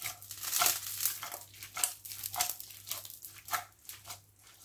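Spaghetti being tossed and stirred in an aluminium pan with a splash of pasta cooking water: wet, squelching strokes with the pan scraping, about two or three a second.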